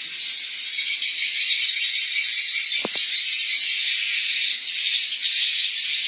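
Dense, steady chirping of many swiftlets filling a swiftlet house's roosting room, a continuous high-pitched twittering wash with no breaks. One short knock just before halfway.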